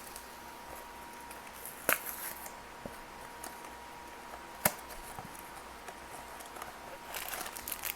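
A small cardboard blind box being handled and opened: a couple of sharp clicks or taps about two seconds and nearly five seconds in, and light rustling of packaging near the end, over a faint steady tone.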